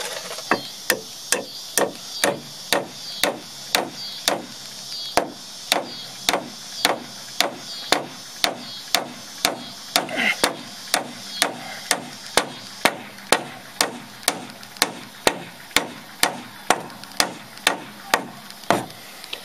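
Claw hammer driving nails into a wooden frame: steady, evenly spaced blows, about two a second, that stop shortly before the end.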